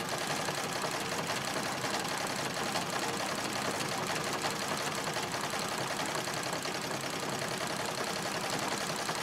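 Singer 66 treadle sewing machine running steadily at stitching speed, an even fast clatter of the needle mechanism, with a little rattling in the machine: a sign that it is due for oiling and for cleaning lint out of the feed dog and bobbin area.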